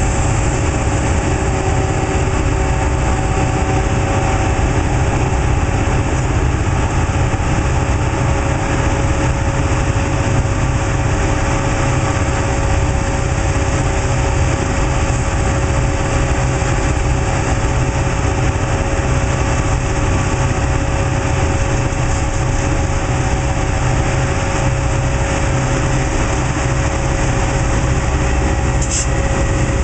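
Metra diesel locomotive running steadily, a constant engine drone with a held mid-pitched hum, as the train stands at the platform. Near the end the train starts to move.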